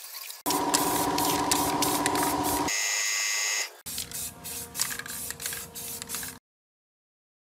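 A pressure washer runs with a steady motor hum under the hiss of its water jet, then gives way to a brief high whine. After a cut, an aerosol spray-paint can hisses in short repeated bursts.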